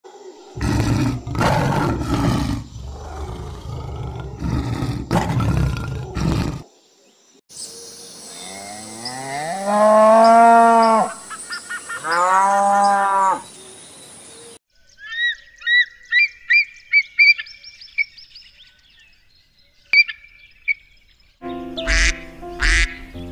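A run of animal calls. First comes several seconds of rough, noisy sound. Then a cow moos twice in long calls, followed by goslings peeping in quick high chirps, and near the end a burst of short repeated goose calls.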